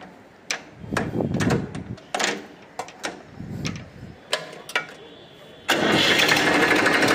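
Massey Ferguson 241 DI's 2500 cc three-cylinder Simpson Dualtec diesel started on its electric starter: a few clicks and short bursts, then about five and a half seconds in the engine catches and settles into a steady idle. It runs with a crisp, healthy sound.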